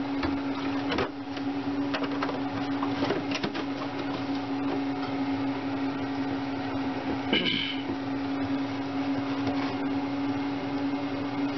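A kitchen exhaust fan hums steadily while a metal whisk scrapes and clicks against a glass bowl, beating milk into pancake batter.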